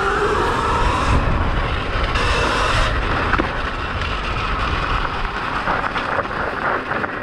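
72-volt Sur-Ron electric dirt bike ridden fast along a dirt trail: the motor and chain whine under heavy wind rush on the microphone and the rumble of the tyres over rough ground, with a couple of sharp knocks from bumps.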